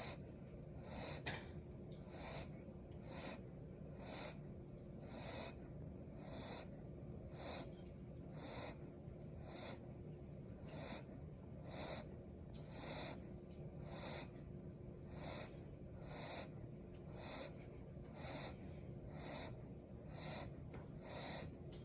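Golden retriever puppy snoring in sleep: a short, hissy breath sound about once a second, repeated evenly throughout.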